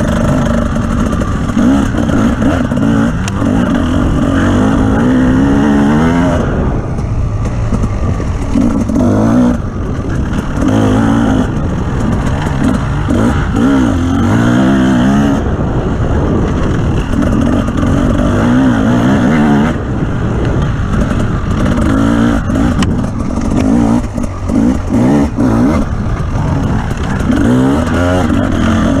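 Off-road vehicle's engine running loudly, its pitch rising and falling again and again as the throttle is opened and lifted, with short dips where it backs off and scattered knocks and clatter.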